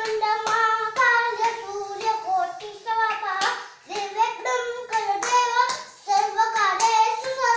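A young boy sings a devotional song in a high child's voice, clapping his hands in time at about two claps a second.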